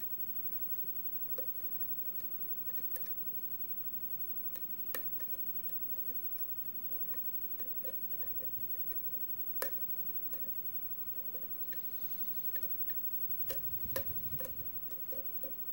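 A hook pick working the pins of a padlock held under tension: faint, irregular small metal clicks and ticks as the pick lifts pins and they set, the loudest about ten seconds in and a cluster near the end.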